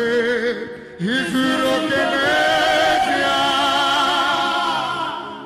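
A voice singing with a strong vibrato: a short phrase, then a long held, wavering note from about a second in that fades toward the end.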